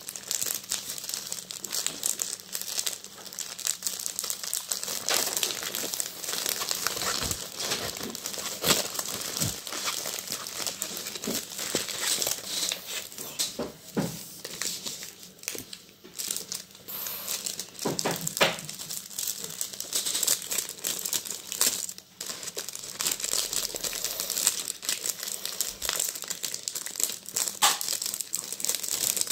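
Thin plastic packaging crinkling and rustling continuously with many small crackles as hands work a clear plastic sleeve around a rolled diamond-painting canvas and small zip bags.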